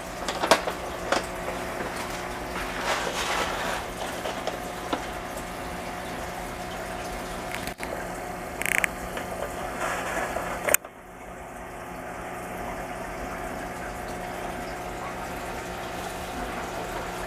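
Aquarium filter or pump running with water trickling and splashing over a steady electrical hum. A few sharp clicks or knocks break in, the loudest a little past halfway.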